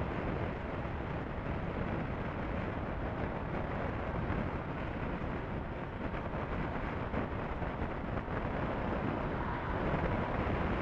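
Wind rush on the microphone over a Honda CB500F's engine running at highway speed, a steady noise that grows a little louder near the end.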